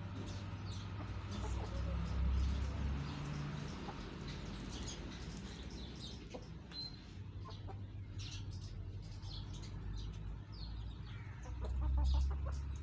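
Chickens clucking as they forage, in short calls scattered through, over a low steady background with two brief low rumbles, one about two seconds in and one near the end.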